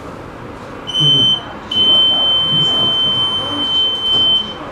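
Tram door warning signal: a short high beep about a second in, then one long steady high beep of nearly three seconds, sounding as the doors are about to close at a stop.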